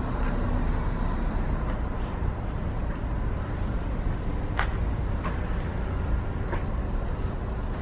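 Steady low road and engine noise of a slowly moving car, heard from inside the cabin, with a few light clicks about halfway through.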